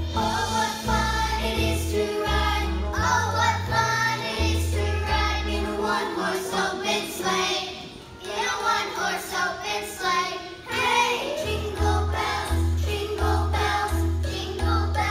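Children's choir singing a Christmas song over instrumental accompaniment. The low bass notes drop out for a few seconds in the middle and come back in near the end.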